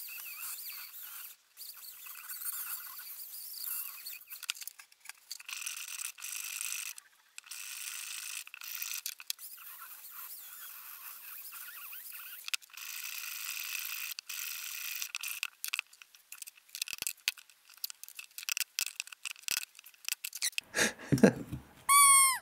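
Dremel rotary tool grinding into cured carbon fibre and resin: a high-pitched whine that comes in stretches with short breaks as the bit is pressed in and lifted. Near the end, louder sharp knocks and a brief falling squeal take over.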